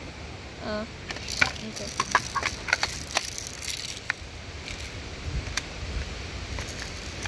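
Sharp, irregular clicks and clacks from a toy airsoft gun's plastic parts being handled, bunched together for a few seconds, then a few scattered clicks.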